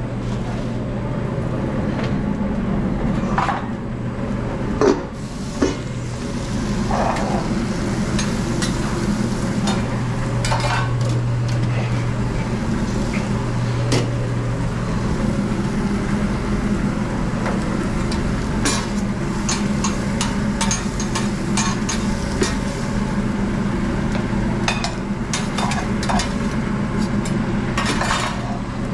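Food frying and sizzling on a restaurant cook line, with utensils and pans clinking and scraping in scattered knocks, over a steady low hum.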